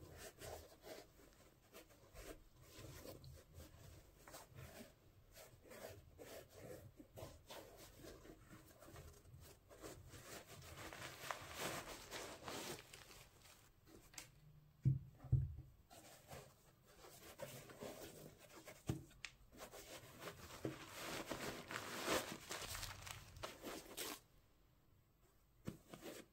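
Faint rustling and rubbing of cotton-gloved hands handling denim high-top sneakers and their laces, with a few soft thumps around the middle.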